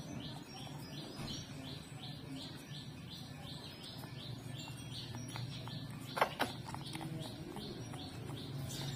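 A bird chirping in a fast, even series of short high calls, about three a second, stopping about five seconds in. Two sharp clicks about six seconds in are the loudest sounds.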